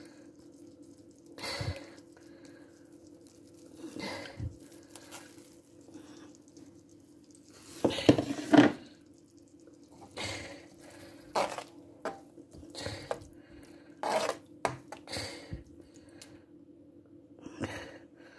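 Metal spoon stirring and scraping in a frying pan of onions and tomatoes, with scattered clinks and scrapes. The loudest is a pair of knocks about eight seconds in. A steady low hum runs underneath.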